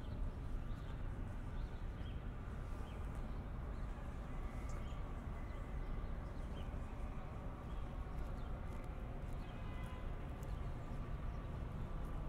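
Steady city traffic rumble, with footsteps on paving stones and scattered small bird chirps over it.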